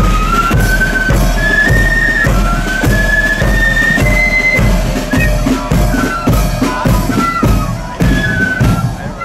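Marching flute band playing a tune: a line of flutes carrying the melody over a regular bass drum beat and snare drums.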